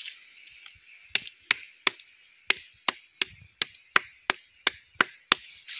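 About a dozen sharp knocks on a rock, evenly spaced at roughly three a second and starting about a second in. The rock is being tapped to sound out whether it is a hollow cover stone.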